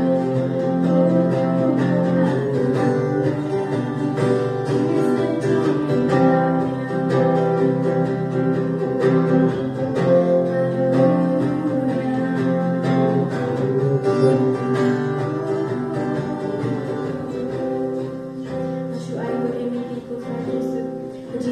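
Acoustic guitar strummed steadily, accompanying voices singing into microphones.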